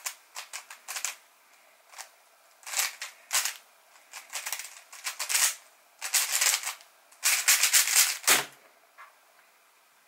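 MoYu WRM v9 Maglev 3x3 speed cube being turned fast during a solve: the plastic layers clack in rapid runs with short pauses. The runs grow longer and denser in the second half and end with a low knock a little over eight seconds in, as the solve finishes.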